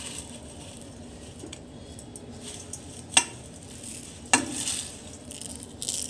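Fine dry vermicelli rustling and crackling faintly as hands press it onto a batter-coated potato-paneer nest in a steel plate, with two sharp clicks against the plate, about three and four and a half seconds in.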